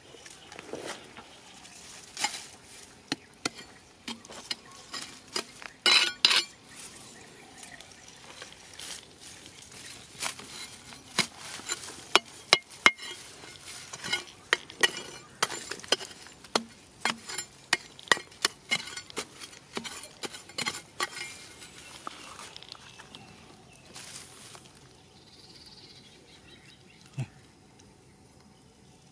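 Hands rummaging through dry grass, soil and loose stones: irregular sharp clicks, clinks and rustles, busiest through the middle and thinning out near the end.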